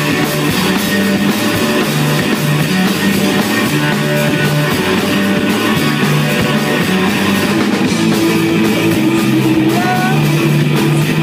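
Live rock band playing loudly: electric guitar, bass guitar and drum kit together, with a steady driving beat.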